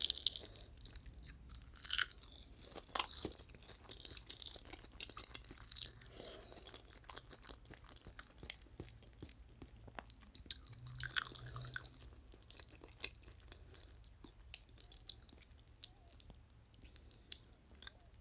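Close-miked chewing of a bite of fried rice wrapped in roasted seaweed, with crisp crunches. The crunches are loudest near the start and again about eleven seconds in, then thin out.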